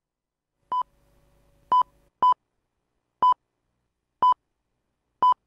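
Radio time signal: six short, identical high beeps about a second apart, marking the top of the hour.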